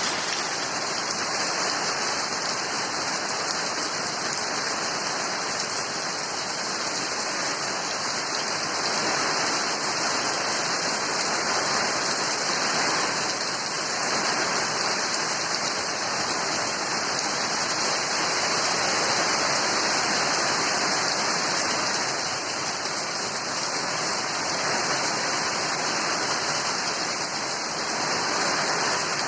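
Steady rain falling, an even hiss that holds through without a break.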